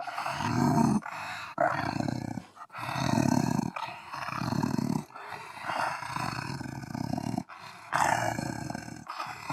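Wolf growling: a run of rough, low growls, most about a second long, with short breaks between them.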